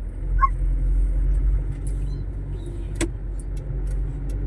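Steady low rumble of a motor vehicle's engine in road traffic, with a single sharp click about three seconds in.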